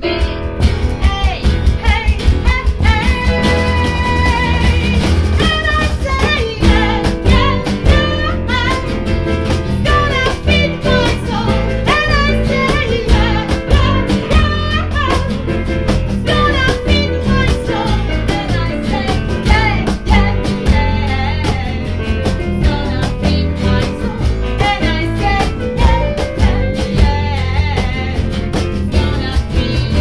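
A small acoustic-electric band playing a song: a woman singing over strummed acoustic guitar, electric guitar, keyboard and a cajón keeping a steady beat.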